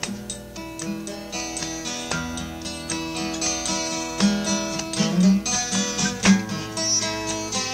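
Acoustic guitar music: strummed chords with plucked notes, a recorded song playing without singing.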